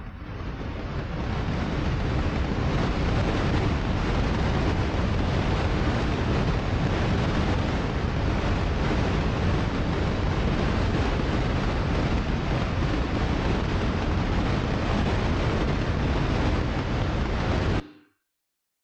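Soundtrack of a projected art video: a dense, steady rushing noise with a deep rumble, swelling in over the first two seconds and cutting off suddenly near the end as the video finishes.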